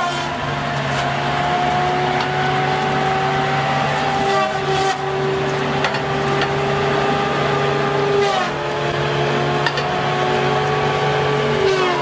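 Wheeled feller buncher running, its spinning disc saw head whining steadily over the diesel engine. The whine drops in pitch about eight seconds in and again near the end as the saw bites into trunks, with a few short cracks of wood.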